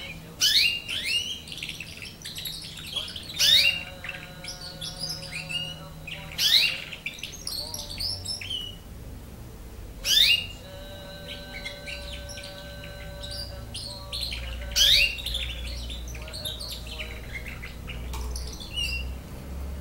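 Young canary, about nine months old and still learning its song, singing in phrases of rapid chirps and sharp whistled sweeps. About five loud outbursts come a few seconds apart, with quieter notes between them.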